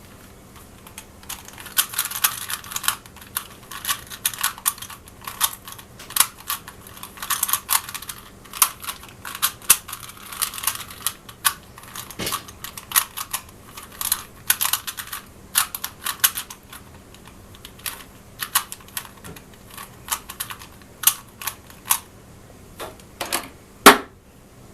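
Rubik's cube being scrambled by hand: quick runs of plastic clicks and clacks as the layers are twisted, starting about a second and a half in and going on in bursts with short pauses.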